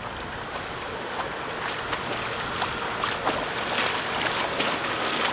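Water splashing as a snorkeler kicks with swim fins and strokes along the surface of a pool: a steady rush of water noise with small, irregular splashes.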